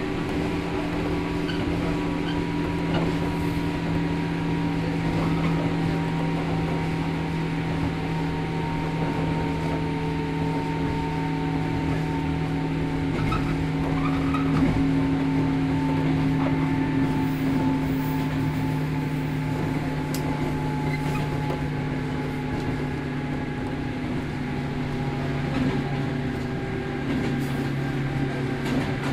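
Running sound inside a JR Kyushu 103 series 1500 subseries motor car: the MT55 traction motors whine in several steady tones over the rumble of the running gear, the pitch sinking slowly as the train runs along.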